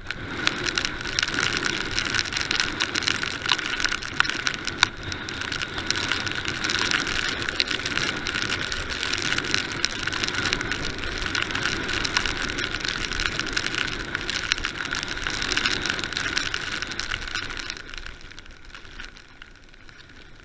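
Mountain bike riding fast down a muddy dirt and gravel track: a steady rush of tyre and riding noise full of small knocks and rattles. It quietens near the end.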